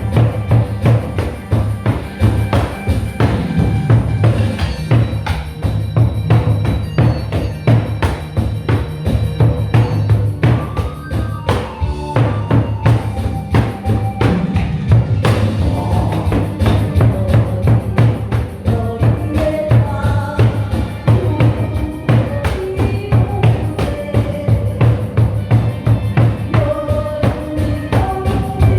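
Janggu (Korean hourglass drum) played in a fast, driving nanta rhythm over a backing track with a drum-kit beat and melody.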